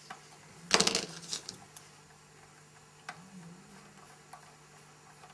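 Small metal parts of a scale-model locomotive pantograph clicking and tapping under the fingers as a pivot screw is fitted into the mechanism. A quick cluster of clicks a little under a second in is the loudest, followed by a few scattered light ticks.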